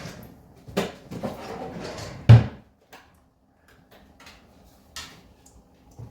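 Handling noises from a diecast toy car being worked on by hand: a few small clicks, a stretch of scraping, and one sharp knock about two seconds in.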